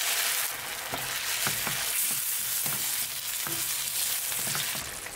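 Chicken stock hitting a hot frying pan of sautéed mushrooms, sizzling and hissing, while a spatula stirs through the liquid in short, irregular strokes. The sizzle eases a little near the end as the stock comes up to heat.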